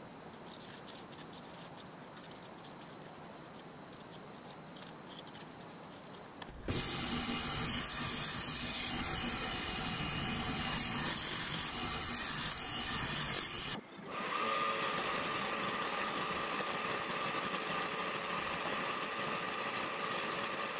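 Quiet shop sound at first. About a third of the way in, a vertical bandsaw cutting aluminium plate starts suddenly with a loud, steady cutting noise. It cuts off sharply about two-thirds through, and a milling machine's end mill cutting aluminium plate follows, steady, with a constant whine.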